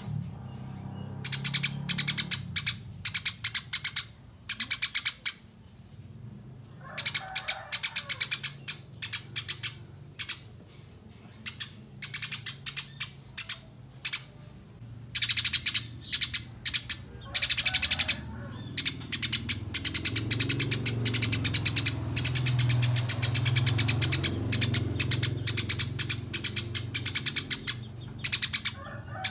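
Eurasian tree sparrows giving fast, shrill chirping runs in the agitated 'fighting' style, many chirps a second in bursts broken by short pauses, over a low steady hum.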